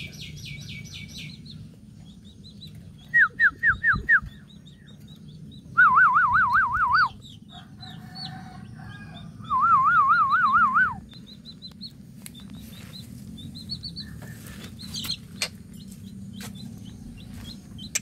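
Javan myna (jalak kebo) calling close by: a quick run of high chirps, then five falling chirps, then two loud warbling whistles over a second long about 6 and 10 seconds in, then faint high chirps.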